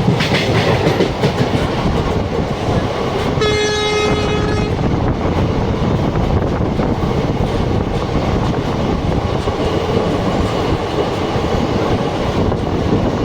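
Passenger train running steadily on the rails, with a loud continuous rumble of wheels and coaches. About three and a half seconds in, a train horn sounds once, a single held note of just over a second.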